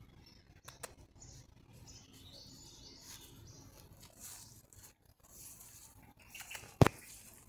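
Faint rustling and handling noise from a handheld camera being moved over a lawn, with a few small clicks about a second in and one sharp, loud knock near the end.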